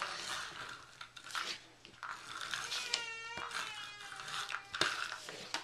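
A toddler crying in the background, with one short high wail about three seconds in. A few sharp clicks are heard in between.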